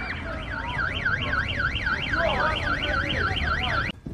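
Car alarm siren sweeping rapidly up and down, about four sweeps a second, with voices faintly underneath; it cuts off suddenly near the end.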